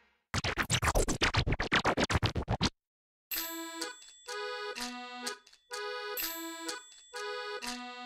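Background music for an animated intro: a fast rattling run of clicks for about two seconds, a short break, then light music of held chords in short phrases.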